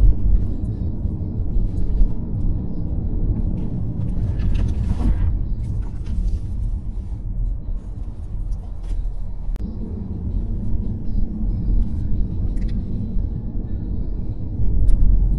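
Car driving: a steady low road rumble of tyres and engine, with brief hissing swells about four to five seconds in and again near six seconds.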